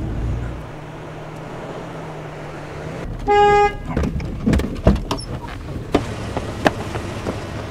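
Car horn honking once, a steady note held for about half a second, over the low rumble of a car interior. A few short knocks and clicks follow.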